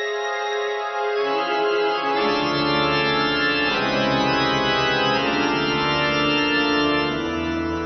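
Background music of slow, held chords, with low bass notes coming in about a second in and the harmony shifting near the end.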